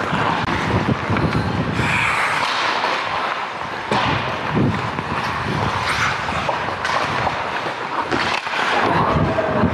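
Ice hockey skate blades carving and scraping across the ice, heard close up from a player, with sharp clacks of sticks and puck every second or two.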